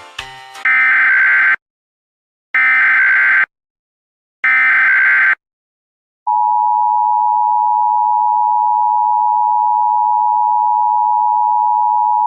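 Emergency Alert System tones announcing a Severe Thunderstorm Warning. First come three buzzy, warbling SAME header data bursts, each about a second long with about a second between them. About six seconds in, the steady two-tone EAS attention signal starts and holds without a break.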